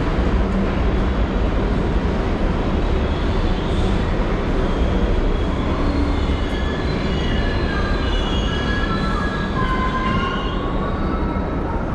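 New York City subway train running on the rails with a steady low rumble. A high, wavering wheel squeal comes in a few seconds in, is strongest through the second half, and fades near the end.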